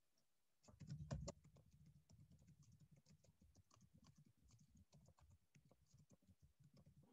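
Faint typing on a computer keyboard: a quick, steady run of keystrokes that starts just under a second in, the first few strokes the loudest.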